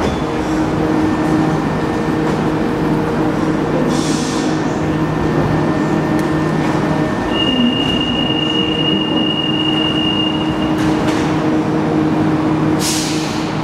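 Alstom NS-93 rubber-tyred metro train standing at the platform, its motors and equipment giving a steady hum over station noise. A steady high tone sounds for about three seconds in the middle as the doors close, and short hisses of air come about four seconds in and near the end.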